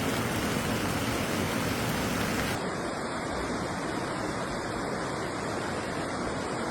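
Steady rushing noise of water, a continuous hiss with no separate events. About two and a half seconds in it changes abruptly and loses its highest hiss.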